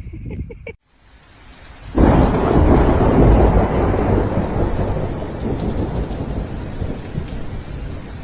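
Rain falling, then about two seconds in a loud clap of thunder that rumbles on and slowly fades.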